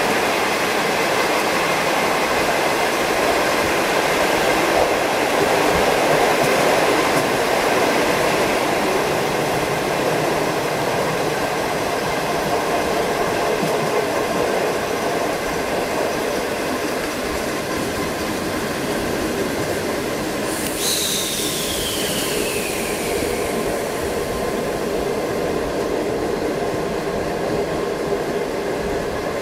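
Inside a moving passenger coach without air-conditioning: a steady rush of wind through the open windows, mixed with wheel-on-rail noise. About two-thirds of the way in, a sudden hiss cuts in, with a high tone that slides down in pitch over about two seconds.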